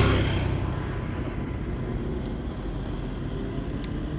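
A road vehicle passing close by, its rumble and hiss fading over the first second, then a steady low outdoor rumble. A faint click comes near the end.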